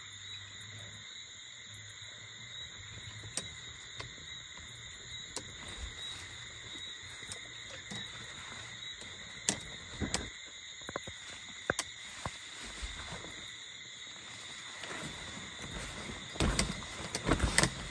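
Steady high-pitched chorus of evening insects, with scattered clicks, knocks and rustles of a pop-up tent's frame and fabric being pushed and handled, busiest near the end.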